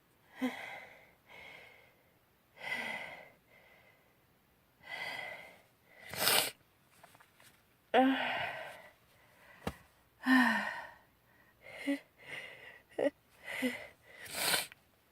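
A girl's run of gasping, catching breaths and sneezes, about a dozen separate bursts, the sharpest about six and fourteen and a half seconds in: a sneezing fit from a tickle in her nose.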